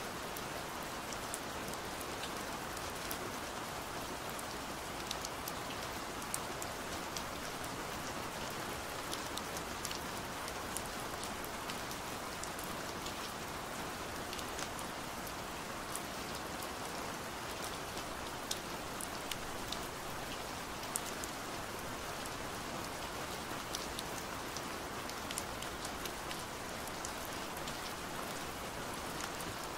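Steady rain falling on a window: an even, constant hiss with many scattered sharp ticks of single drops.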